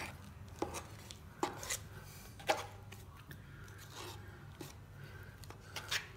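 Small hand tool carving and scraping setting cornice cement off a plaster cornice: short, irregular scrapes and clicks, one or two a second.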